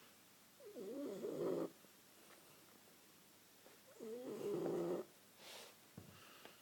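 French bulldog snoring in its sleep: two loud, wavering snores about three seconds apart, each lasting about a second, with a softer breath out after the second. The laboured, snorting breathing is usual for this flat-faced dog.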